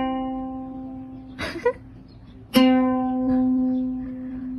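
Ukulele string plucked by a cat's paw: a single open note rings out and fades, then is plucked again about two and a half seconds in and rings on. A short soft rustle comes between the two plucks.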